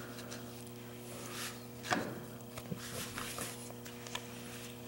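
Soft rustling of a cloth handled against a speaker cabinet, with a few light clicks and knocks, the sharpest about two seconds in, over a steady low electrical hum.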